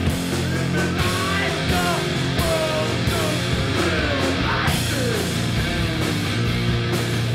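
Rock song: a steady, heavy bass and drum beat under a lead line that glides and bends up and down in pitch.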